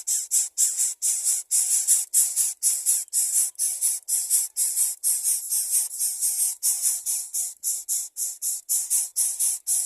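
Rhythmic high shaker-like hissing, about two to three pulses a second with no low notes, like the percussion of a background music track.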